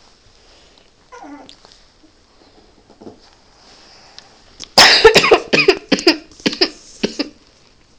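A puppy gives a short, faint whine about a second in. Then, from near the five-second mark, comes a loud fit of about seven coughs in quick succession, close to the phone.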